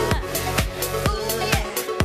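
Electronic dance music with a steady kick drum about two beats a second, and a woman singing into a microphone over it.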